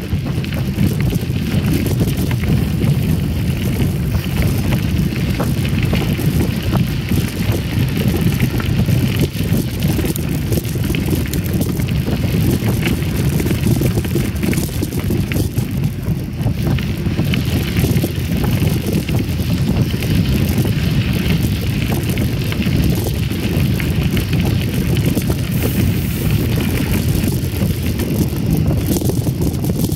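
Mountain bike riding on a gravel trail: steady wind noise on the microphone mixed with tyres rolling over gravel, with small rattles now and then.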